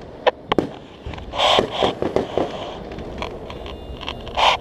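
Fireworks going off: a few sharp bangs in the first second, then a cluster of pops about a second and a half in, and another burst near the end.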